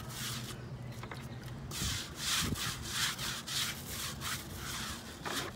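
Stiff-bristled scrub brush scrubbing weathered fence boards in quick back-and-forth strokes, bristles rasping on the wood, with a short pause about a second in. The brush is working oxalic acid wood brightener into the boards.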